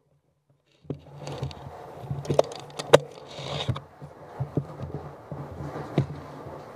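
Steady low hum and background noise with several sharp clicks or knocks, the loudest about three seconds in; the sound cuts in about a second in after silence.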